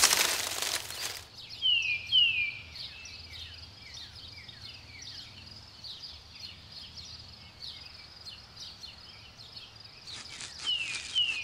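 Birds calling in dry bush: a repeated pair of short, falling whistles over steady, faint chirping. A short, loud burst of noise comes right at the start, and a run of light ticks near the end.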